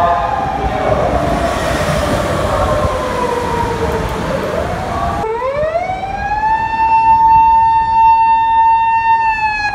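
Japanese police patrol car siren wailing. One long tone slides down over the first five seconds with road noise beneath it, then rises again about five seconds in, holds steady and high, and begins to fall near the end.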